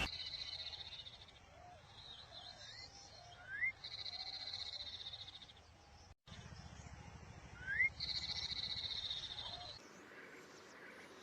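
A sirtu (sridung) songbird singing. Three buzzy, high trills about a second and a half long come roughly every four seconds, each opened by a short, sharp rising whistle.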